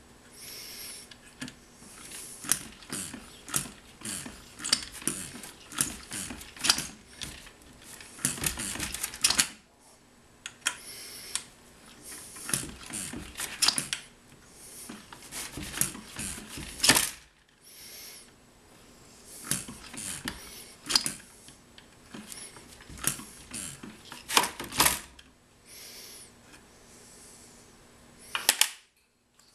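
1/3-scale Parsell & Weed hit-and-miss model engine turned over by hand on its first start attempts: irregular mechanical clicking and clattering with a few sharper, louder cracks. The builder found its 6:1 compression ratio too high for it to run well.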